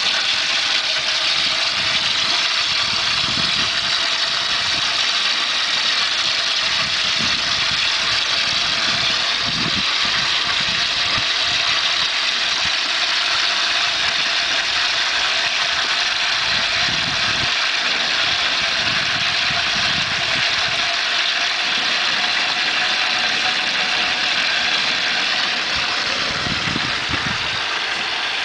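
Hot peanut oil boiling and sizzling hard around a whole turkey as it is lowered into a deep-fryer pot: a loud, dense, steady hiss, with occasional low rumbles underneath.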